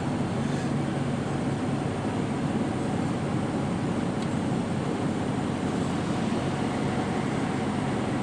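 Semi-truck cab at road speed: the diesel engine's steady drone and the tyre and road noise, running evenly.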